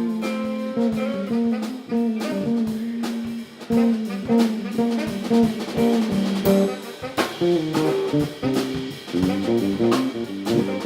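Live band playing an instrumental groove tune, with guitar over a steady drum-kit beat.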